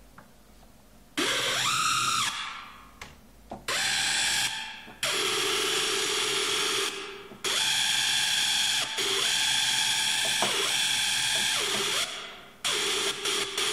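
Buzzy, distorted synthesizer lead played from a MIDI keyboard: a rising pitch sweep about a second in, then a series of held notes that start and cut off sharply, with short breaks between them.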